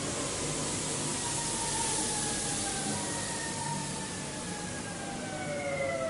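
Train passing: a steady rushing rumble, loudest about two seconds in, with several faint tones gliding slowly down in pitch.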